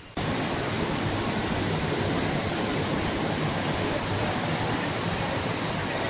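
Waterfall and the rocky stream below it: a steady, loud rush of falling and tumbling water.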